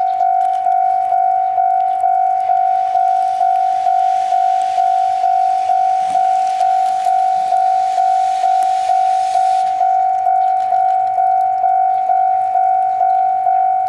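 Electronic railway level-crossing warning bell ringing steadily, about two strikes a second on one high tone. A hiss of steam from the C58 steam locomotive's cylinders rises over it through the middle few seconds.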